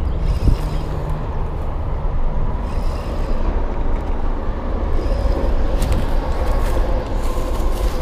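Steady rumble of highway traffic, with a brief thump about half a second in.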